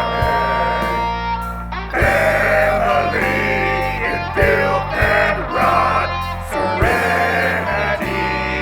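Music: a guitar-led song with a steady beat and a melody line that bends in pitch.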